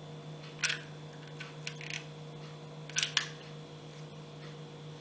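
A few short, soft rustles and clicks of fabric roses being handled and set onto a fabric-covered wreath, over a steady low hum.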